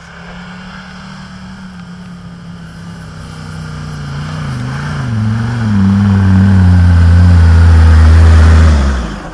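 Land Rover Defender engine pulling the truck off-road toward the listener, its note rising and falling with the throttle and getting much louder as it comes close; the sound cuts off abruptly near the end.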